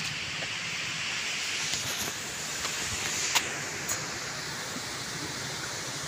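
Steady rushing hiss of outdoor ambience by the barrage, with a few faint clicks near the middle.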